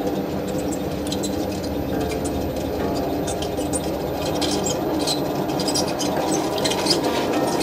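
Electric potter's wheel running with a steady hum while a tall wet clay cylinder is thrown on it, wet hands and slip on the spinning clay making many small irregular clicks and patters.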